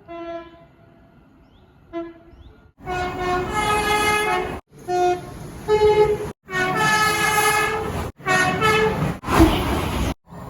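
Train horns sounding in a run of short clips cut together. Each clip holds a steady chord of several tones and is cut off suddenly. The horns are faint for the first couple of seconds, then louder ones follow each other about every two seconds.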